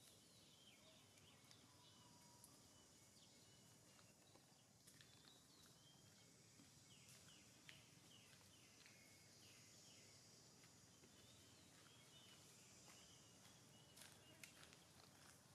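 Near silence: faint outdoor ambience with scattered short, high chirps and a few soft clicks.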